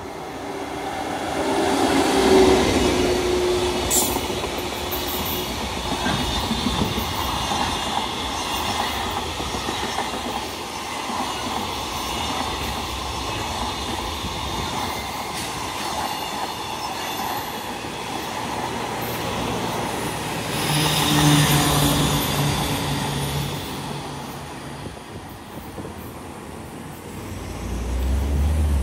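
EF81 AC/DC electric locomotive passing close by, loudest about two seconds in, followed by a long rake of Koki 100-series container wagons rolling past with a steady rumble of wheels on rail. The noise swells again a little past two-thirds through and dies down as the end of the train goes by.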